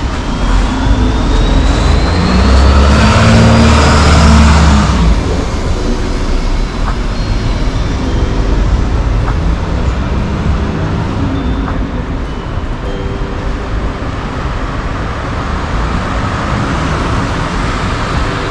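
City street traffic. A motor vehicle passes close, loudest from about two to five seconds in, with a thin rising whine as it goes by. Steady traffic noise continues after it.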